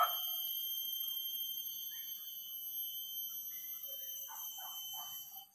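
Forest insects droning steadily in several high-pitched tones. A short knock comes right at the start, and faint distant calls come about four seconds in.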